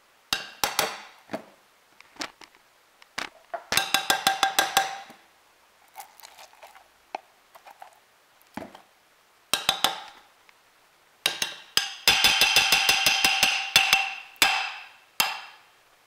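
A metal spoon clinking against a glass coffee carafe as coconut oil is scooped in and knocked off. It comes in bursts of sharp, ringing taps, with a fast run of a dozen or more taps near the end.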